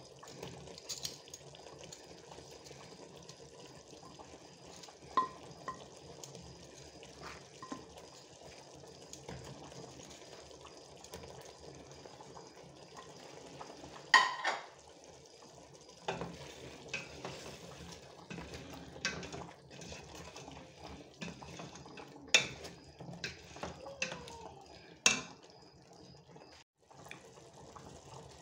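Chicken stew simmering in a stainless steel pot, a low steady sizzle, with scattered sharp clinks and knocks of metal cookware, the loudest about halfway through and twice near the end.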